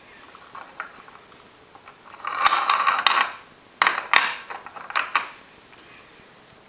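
Ceramic espresso cups scraping and clinking on the perforated metal drip tray of a manual lever espresso maker as they are swapped, in three clattering spells about two, four and five seconds in.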